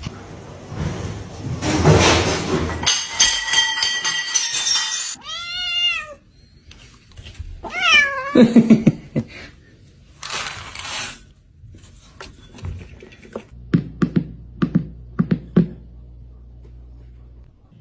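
Cat meowing: one rising-and-falling meow about five seconds in and a falling meow about three seconds later, between stretches of noise, with a run of short knocks near the end.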